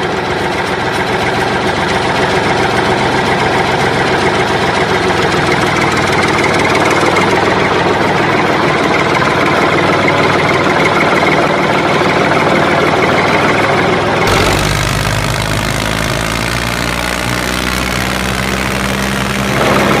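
Tractor engine running steadily with a rapid knocking chug. About fourteen seconds in, it changes to a deeper, steadier engine sound.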